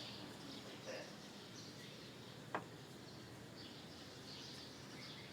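Faint, distant birds chirping over a steady background hum, with a single sharp click about two and a half seconds in.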